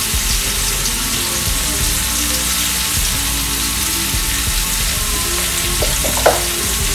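Pumpkin pieces frying in oil in a karahi, a steady sizzle, with a light knock near the end.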